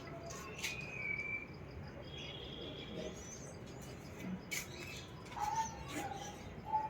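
Small birds chirping in short calls over a faint, steady insect chirr, with a few sharp clicks.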